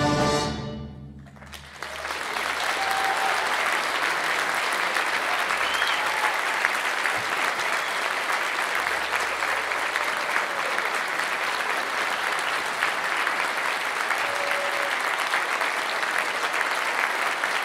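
A full orchestra's final chord rings out and dies away in the hall, then the audience breaks into steady applause about a second and a half in.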